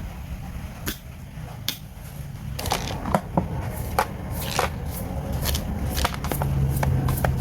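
Kapusi K-9102 wire stripper pliers clicking and snapping as they clamp a cable and strip its insulation: a few sharp clicks at first, coming faster from about two and a half seconds in.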